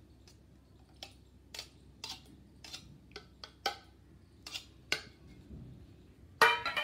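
Metal spoon clinking and scraping against a stainless steel container as thick curd is scooped out and dropped into a plastic bowl: a run of separate light clinks, with a louder knock near the end.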